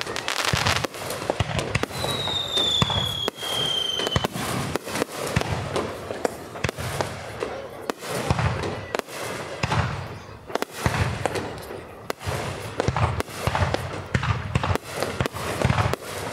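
Fireworks display: aerial shells bursting one after another in a dense run of bangs. About two seconds in, a high whistle sounds for about two seconds, falling slightly in pitch.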